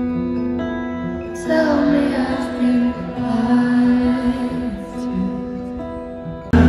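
Live concert music recorded from the crowd: a woman singing over guitar and held chords, her voice coming in about a second and a half in.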